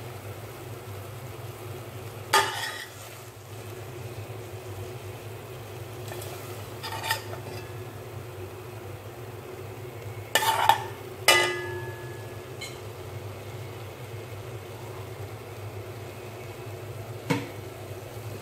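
Metal spoon clanking against a pot a few times as fried chicken pieces are lifted out, the loudest pair of clanks about ten seconds in, over a faint steady sizzle of oil and a low hum.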